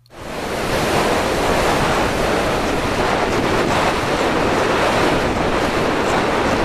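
Steady, loud rush of wind over the onboard camera microphone of a small FPV flying wing gliding low to land, with no motor tone heard.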